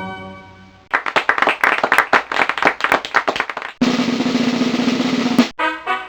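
Stock sound-effect drum roll: fast snare strokes for about three seconds, after the tail of an organ chord fades out. A long noisy hit follows and cuts off sharply, then short brass notes begin near the end.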